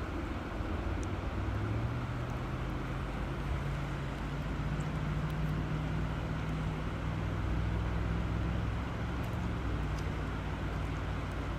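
River water flowing steadily, with a low hum underneath that drifts slightly in pitch.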